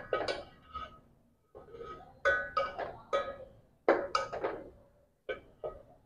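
Steel ladle clinking and scraping against a steel cooking pot as curry is served onto a plate: a string of irregular, ringing metal clinks, with a short pause about a second in.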